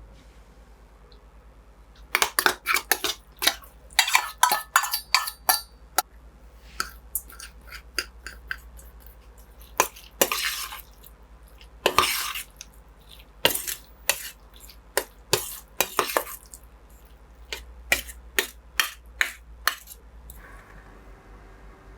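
Dishes and cutlery clinking and knocking against each other in a series of light strikes, with two short scraping sounds about halfway through.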